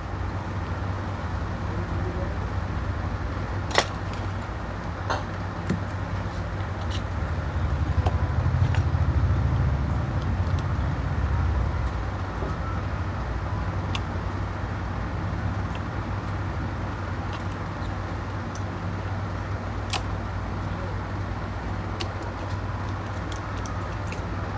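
Small sharp metallic clicks, scattered every few seconds, of a precision screwdriver, tweezers and tiny screws being worked on an opened iPhone 7's internal metal parts. Under them runs a steady low rumble that swells for a few seconds about eight seconds in.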